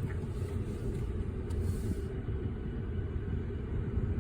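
Low, steady rumble of a pickup truck's engine running at low speed as the truck reverses into a campsite.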